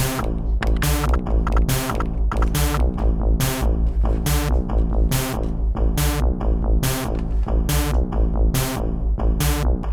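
Electronic beat from a Teenage Engineering OP-Z's stock sample track with a PO-24 Office pocket operator, playing a looped pattern. It has a steady deep bass, short pitched sample notes and a sharp percussive hit a little more often than once a second.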